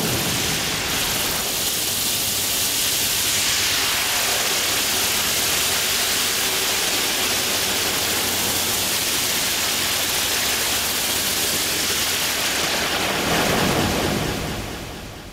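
A steady rushing noise that fades out near the end.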